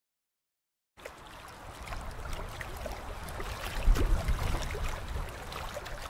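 About a second of silence, then running water from a stream, trickling and babbling with many small splashes, a little louder in the middle.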